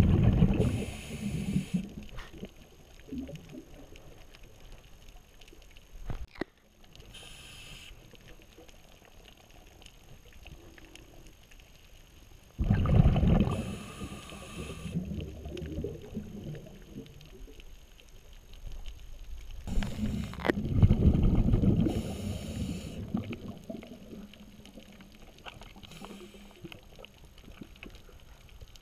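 Scuba diver breathing through a regulator, heard underwater: three long rushes of exhaled bubbles, with fainter hissing breaths between them.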